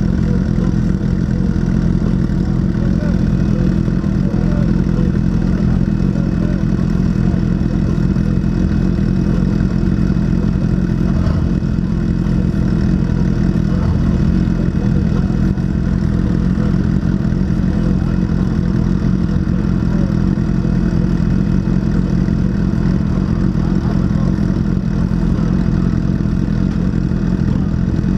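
Motorcycle engines idling steadily, a continuous low rumble with no clear revving.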